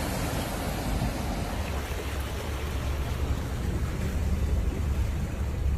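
Steady rushing noise of rain and water heard inside a moving car on a flooded road, over a low engine and road rumble.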